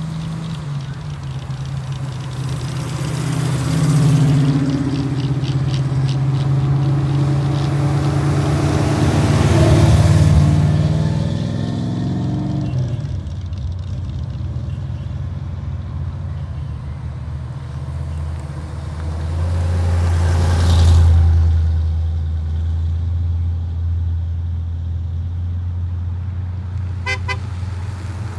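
Cars pulling out one after another, engines running and swelling as each passes close: one about ten seconds in, then a deeper-sounding one loudest about twenty-one seconds in. A short horn toot comes near the end.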